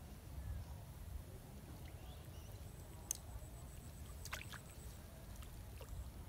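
Faint outdoor ambience with a steady low rumble, broken by a short click and then a few light ticks and a soft plop as a bamboo fishing rod's hook and bait go into the still pond water, a little after halfway through.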